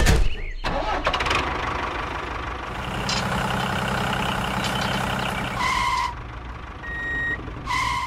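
Tractor engine starting with a loud burst, then running steadily with a pulsing beat. Two short two-tone horn beeps come about two-thirds of the way through and at the very end.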